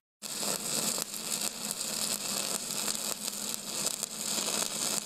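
Electric arc crackling and hissing steadily over a faint low hum, beginning a moment in after a brief dropout to silence.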